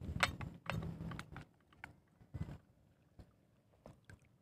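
Faint scattered clicks and light knocks, with a low murmur under them in the first second and a half, then nearly quiet with only a few more clicks.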